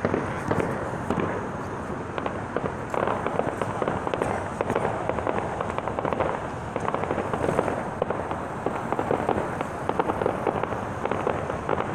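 Distant aerial fireworks display going off: a dense, unbroken run of many small bangs and crackles.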